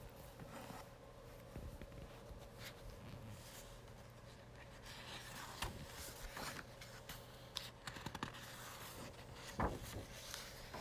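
Faint rustling and light clicks from a paper book being handled, with a soft knock near the end, over a low steady hum.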